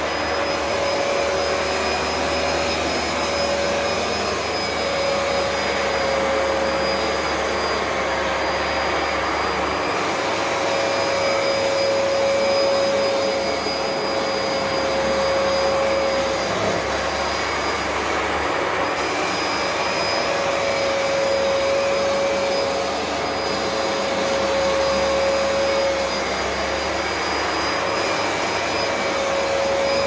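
Vax upright carpet washer running steadily, a constant motor whine with a steady hum, its level swelling and easing slowly as it is pushed back and forth over carpet.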